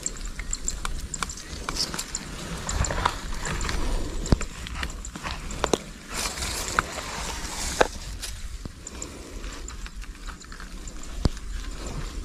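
Rustling of grass and leaves with many scattered short clicks and taps, as of someone shifting through bankside vegetation handling a gun, with a few louder sharp knocks around the middle.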